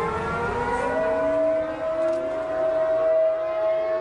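Civil defense siren winding up: its pitch rises through about the first second, then holds one steady wail.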